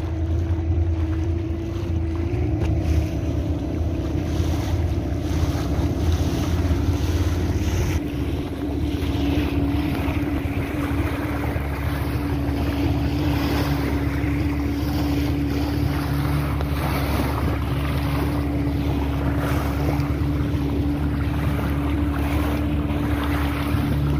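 A small fishing boat's motor running steadily underway, with wind buffeting the microphone and water rushing past.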